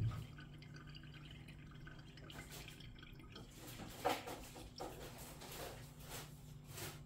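A few faint, scattered knocks and clicks over a low steady hum, the clearest about four seconds in.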